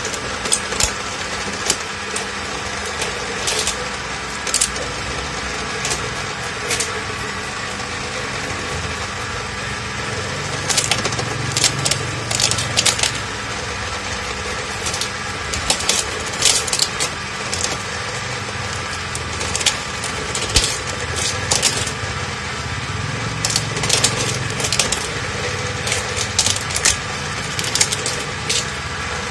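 Coconut shell-peeling machine running with a steady motor drone, its spinning cutter giving repeated bursts of cracking and scraping as coconut shell is pressed against it and chipped away.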